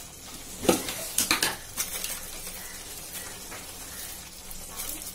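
Spiced masala paste sizzling and bubbling in a kadai, a steady hiss with a few sharp ticks about a second in; the paste is being cooked down until its raw smell goes.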